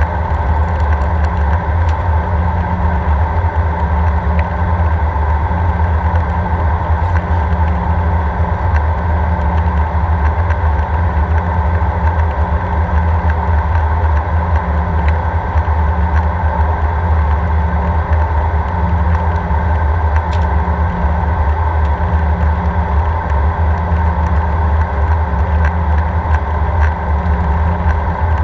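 Steady cabin noise inside an Airbus A319 in flight, heard from a seat over the wing. Engines and airflow make a constant low rumble with a few steady tones above it.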